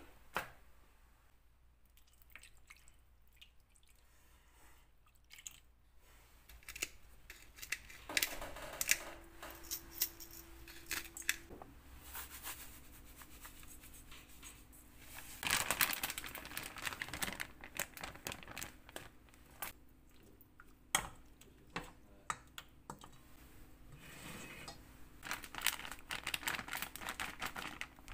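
Quiet kitchen handling sounds as raw chicken is prepared in stainless steel bowls: scattered clicks, taps and rustles, with denser stretches of handling, and a faint steady hum through the middle.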